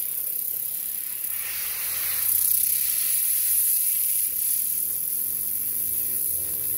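Steady hiss of compressed air from an air-compressor blow gun set to about 90 PSI, blasting a fidget spinner to spin it up fast; the hiss grows a little louder about two seconds in.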